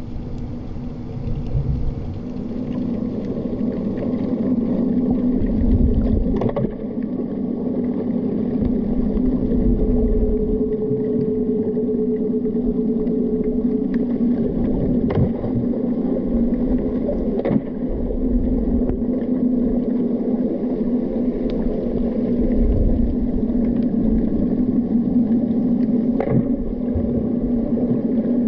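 Sound recorded underwater through a camera's waterproof housing: a steady low drone with an uneven rumble of moving water, a higher hum for a few seconds in the middle, and four faint clicks.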